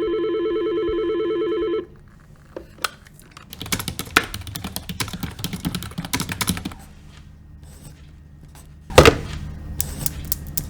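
An electronic telephone ring that warbles quickly and stops about two seconds in, then a few seconds of computer keyboard typing. Near the end comes a loud single hit, followed by quicker clicking over a low hum.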